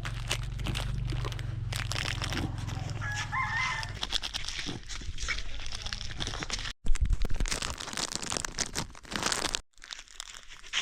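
A rooster crows once, about three seconds in, over scattered clicks and rustling.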